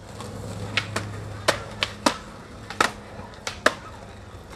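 Skateboard deck and wheels knocking on hard ground: a string of about eight sharp, irregular clacks. A low steady hum runs under the first three-quarters and then fades.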